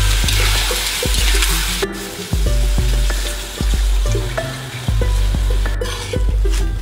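Peeled boiled quail eggs frying in oil and sauce in a steel wok, sizzling loudly for the first two seconds and then more softly, with scrapes and taps as a metal spatula stirs them. Background music with a deep bass line plays throughout.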